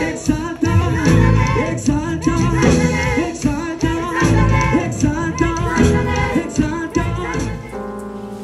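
Worship music: voices singing over a band with a heavy bass. About three-quarters of the way in it gives way to quieter, steady held chords.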